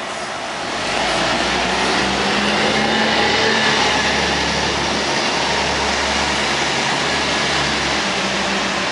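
Nova Bus RTS city bus driving close past and pulling away: a steady low engine drone with a fainter steady higher tone over it, growing louder about a second in and then holding.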